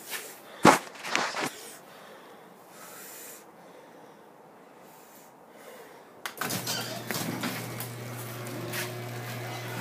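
Two sharp clicks, then about six and a half seconds in a Craftsman half-horsepower garage door opener's motor starts and runs with a steady low hum.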